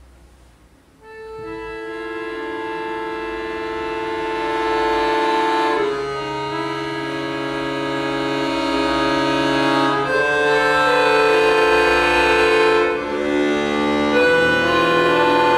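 Pigini concert accordion playing long held chords. It enters about a second in after a pause, grows gradually louder, and moves to a new chord about three times, with low bass notes joining partway through.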